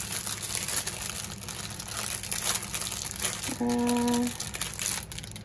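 Clear plastic bag of diamond-painting drills crinkling as it is handled and turned over, with a short steady hum about two-thirds of the way through.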